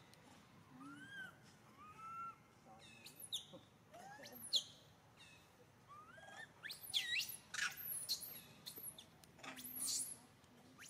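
Young long-tailed macaque calling: a string of thin, high-pitched coos and squeals, a few short arching calls followed by steeply sweeping squeaks, the sharpest about four and a half seconds in.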